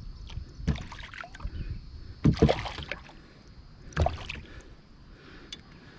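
Knocks and water splashes in a kayak while a just-caught bass is handled. There are three short bursts, the loudest a double knock about two and a half seconds in.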